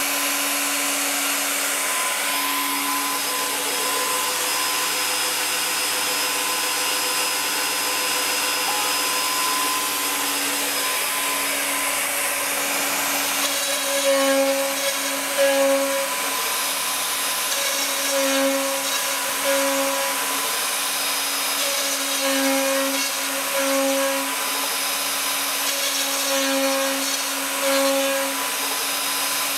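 Cybermation Autograph Multicutter 8000 CNC router running, with a steady high hiss and a constant whine. From about halfway through, humming tones swell and fade in short pulses, about one every one to two seconds, as the servo-driven machine moves.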